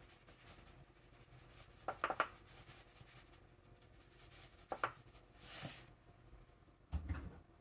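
Seasoning packets and containers being handled on a kitchen counter: light clicks and knocks, a quick pair about two seconds in and another near five seconds, a short rustling hiss just after, and a dull thump near the end.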